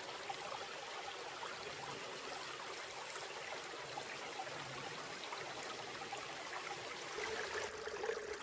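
Mountain stream in a forest, water running over rocks in a steady rush. Near the end the sound changes and a steady low hum joins in.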